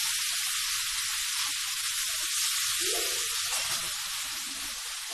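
Steady hiss throughout, with a short faint low sound about three seconds in.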